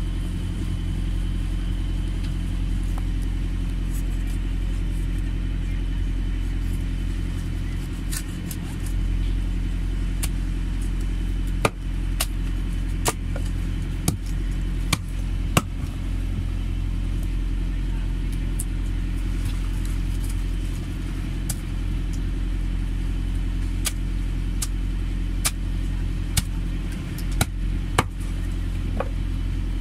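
A large knife chopping through barracuda steaks on a wooden cutting board: a run of sharp knocks about twelve seconds in and another run near the end. Under it runs a steady low motor drone.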